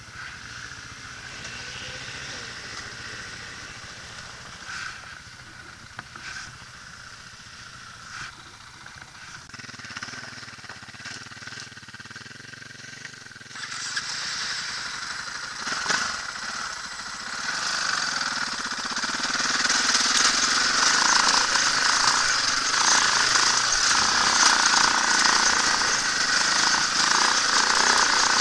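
Dirt bike engine running under the rider, quiet at first with a few light knocks, then getting louder about halfway through and loud and rough for the last third as the bike pulls up a steep, muddy trail climb.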